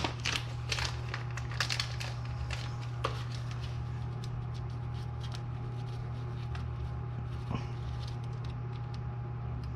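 Light metal clicks and taps as a cotter pin is fitted through the castle nut on a tie rod end. The clicks come thick for the first few seconds, then only now and then, over a steady low hum.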